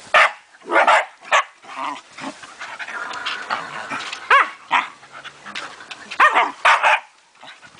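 Scottish terrier puppies barking and yipping in play: a run of short, sharp barks, with a higher yelp that bends in pitch about halfway through.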